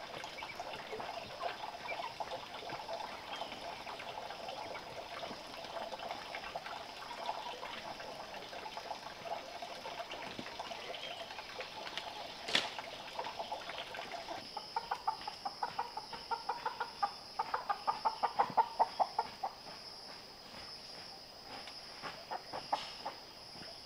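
Chickens clucking over a steady high insect drone, with one sharp click about halfway through. Later comes a quick run of short repeated calls, about four a second, that grows louder and then stops.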